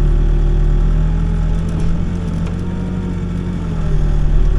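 Backhoe's diesel engine running steadily, its pitch rising slightly about a second in and again near the end.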